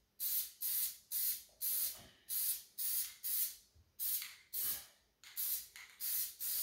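Aerosol spray paint can sprayed in short repeated bursts, a sharp hiss about twice a second with brief pauses between.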